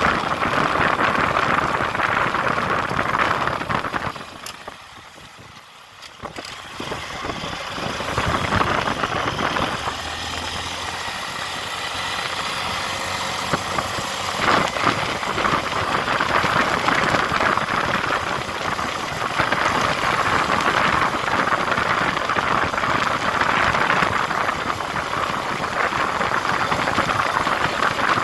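A motor vehicle's engine running, with a drop in loudness about four seconds in.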